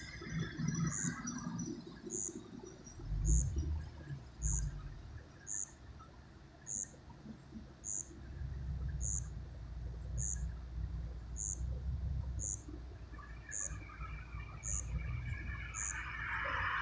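A short, high chirp repeating evenly about once a second, with low rumbling underneath: two brief bursts a few seconds in, then a longer stretch from about eight seconds on.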